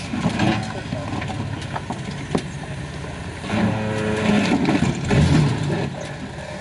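Jeep Wrangler's engine running at low speed as it crawls down a rock ledge, its note coming up louder for a couple of seconds past the middle. A few sharp knocks of tyres and rock come in the first half.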